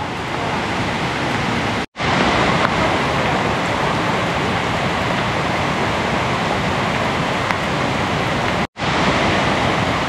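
Steady rushing of a tall waterfall, water dropping about 64 metres onto rocks. The sound cuts out for an instant twice, about two seconds in and near the end.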